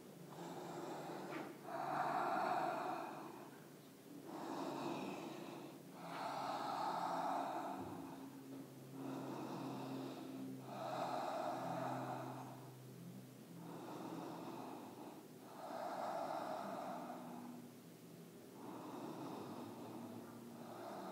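Slow, audible ujjayi yoga breathing: a soft rushing breath drawn in and let out through the throat, each inhale and exhale lasting about two seconds and swelling and fading in an even rhythm.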